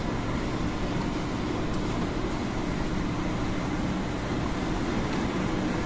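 Steady road and engine noise heard from inside a moving vehicle driving on a wet highway, with a low, even hum.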